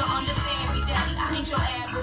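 Hip hop music playing, with a heavy bass line.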